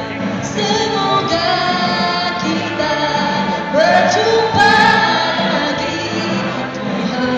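A woman sings a Hari Raya song into a microphone over musical accompaniment, her voice sliding up into a held note a little under four seconds in.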